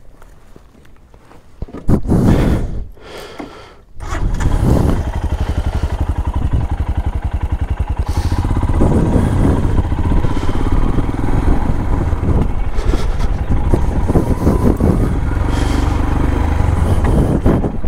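Royal Enfield Himalayan's single-cylinder engine starting: a short burst of starter noise about two seconds in, then the engine catches at about four seconds and runs with a fast, even beat as the motorcycle pulls away and rides off.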